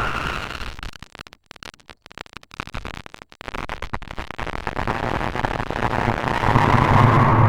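Horror sound effect: a rushing, noisy drone with a low hum beneath it. About a second in it breaks into rapid stutters and dropouts, then swells back up, loudest near the end.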